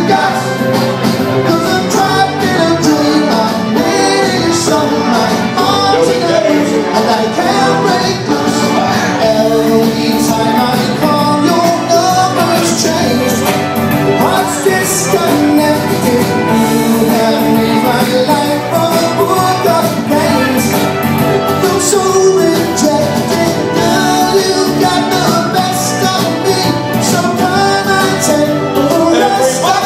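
Soul music played loud over a PA, with two men singing into handheld microphones over the accompaniment.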